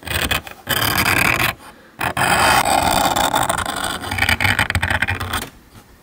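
A pointed tool scratching lines into a piece of slate: a harsh scraping in strokes, with a short break a little before two seconds, stopping near the end.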